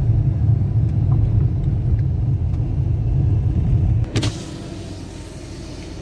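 Low road rumble inside a car driving on a dirt road. About four seconds in, the rumble drops off and a brighter hiss of outside air takes over as the side window is opened.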